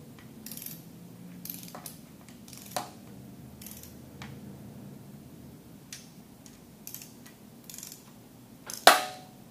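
Scattered light mechanical clicks and ticks, like small metal parts or a hand tool being handled, with one sharper click near the end over a low steady hum.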